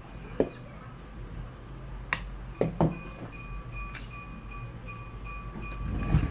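Hard plastic and metal parts of a stripped-down Stihl 440 chainsaw knocking and clicking as its rear handle and fuel-tank housing are worked loose from the engine crankcase by hand: a handful of sharp knocks spread over a few seconds.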